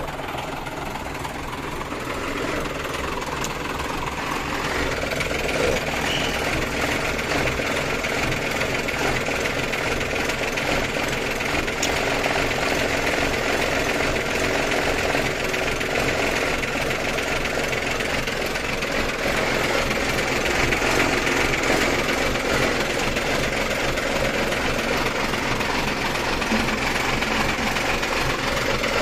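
Freshly overhauled Mitsubishi Fuso truck diesel engine running steadily just after start-up, growing a little louder over the first few seconds. Its valve clearances have not yet been set.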